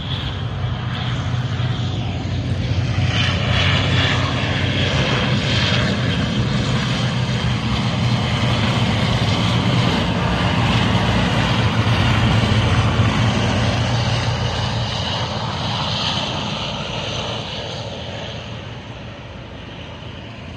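Airplane engine noise, loud and swelling to a peak about two-thirds of the way through, then fading as the aircraft passes.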